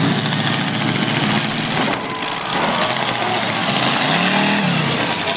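Demolition derby car engines running and revving, one engine rising and falling in pitch about four seconds in.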